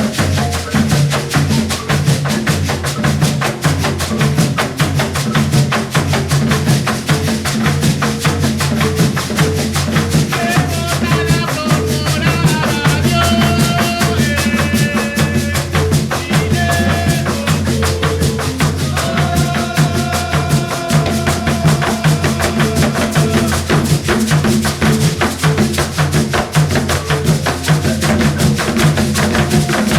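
An ensemble playing Colombian Pacific marimba music: a fast, steady percussion rhythm of drums and shakers under repeating marimba notes, with voices singing from about ten seconds in.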